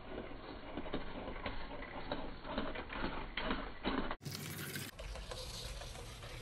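A LEGO pullback motor whirring through its gears as the plastic truck runs, with a dense clatter of clicks from the plastic parts; the sound breaks off abruptly about four seconds in and again a second later, where the footage is cut.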